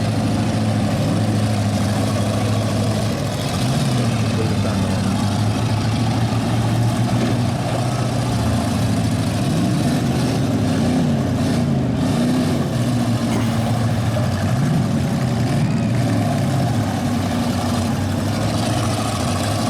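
Engines of several bone-stock demolition derby cars running together, idling and revving, their pitch rising and falling over and over.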